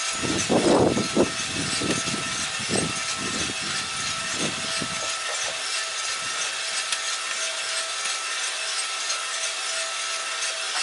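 Cormorant CR600 gas coffee roaster running mid first crack: a steady rushing of the fan and the beans tumbling in the rotating drum, with a faint steady hum. For about the first five seconds a few low, uneven thumps and rumbles sit under it.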